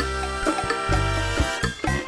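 Upbeat background music with a steady beat and a bouncing bass line.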